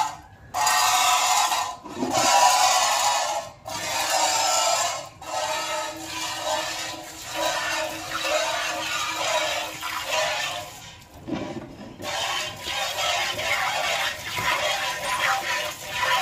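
A cow being milked by hand: streams of milk squirt from the teats into a steel bowl as a rhythmic hissing spray, about two squirts a second, with a few short breaks.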